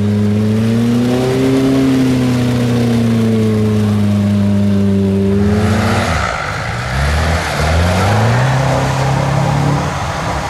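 Off-road 4x4 engine running hard at fairly steady revs, its pitch swelling and falling slightly. About six seconds in, the sound changes suddenly to a rushing noise with the engine revving up in several short rises.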